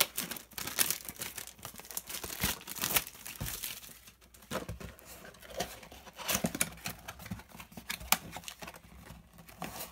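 A cardboard Pokémon trading-card Mystery Power Box being torn open and handled: irregular tearing and crinkling of cardboard, with scattered sharp taps and scrapes.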